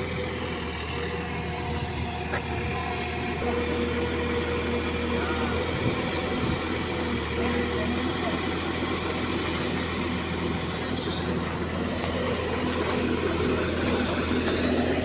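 FINE FM38 mini excavator's engine running steadily under the operator's control, growing a little louder about three and a half seconds in.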